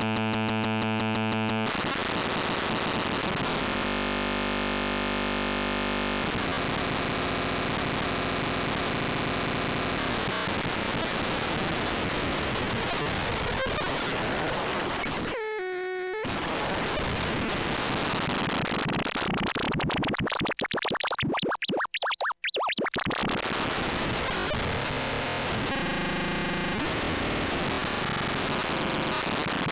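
CubuSynth Engine dual analog VCO module, built on the 3340 chip, making harsh, noisy, heavily modulated synth sound. It opens on a steady buzzy pitched tone that breaks into dense noise, with a brief pitch sweep about halfway through.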